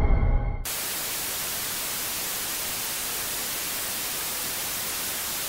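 A low, droning horror music cue cuts off abruptly just over half a second in, replaced by steady, even static hiss that holds at one level.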